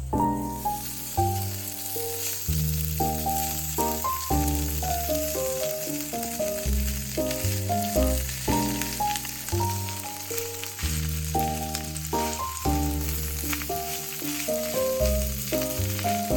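Food sizzling as it fries in a hot pan, setting in suddenly at the start and running on steadily. Background music with piano-like notes and a bass line plays underneath.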